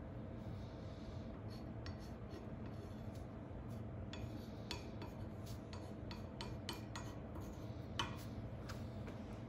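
Chalk writing on a steel plate: a series of short, faint scratchy strokes, with a stronger stroke near the end, over a steady low hum.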